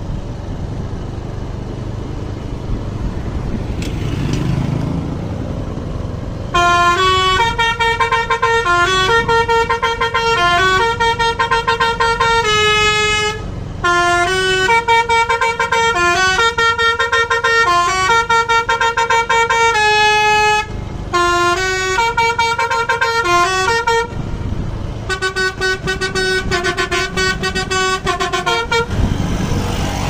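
Indonesian tour bus's Basuri telolet horn playing a melody of stepped, held notes, in four phrases with short breaks, over the bus's engine rumble. For about the first six seconds only the engine and road noise are heard.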